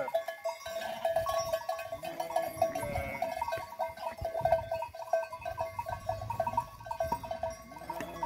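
A flock of sheep and goats bleating now and then, over a steady, busy jingle of small livestock bells.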